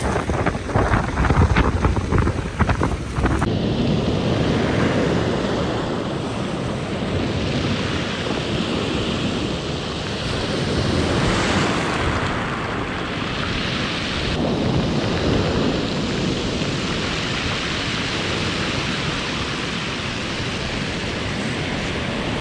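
Pacific surf breaking and washing up a cobble beach, a steady rushing that swells and eases, with wind buffeting the microphone. The first three seconds or so hold a run of short clattering knocks before the surf takes over.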